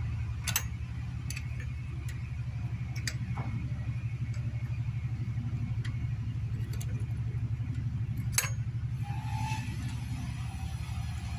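A small motorcycle engine idling steadily, with a few sharp clicks about half a second, three seconds and eight seconds in.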